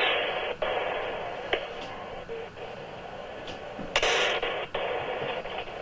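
Two loud firework blasts about four seconds apart, picked up by a doorbell camera's microphone: each a sudden bang that trails off over a second or two, with a tinny, thin sound from the small microphone.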